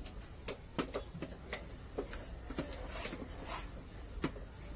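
Heavy fish knife chopping against a wooden chopping block as milk shark is cut up: irregular sharp knocks, roughly two a second.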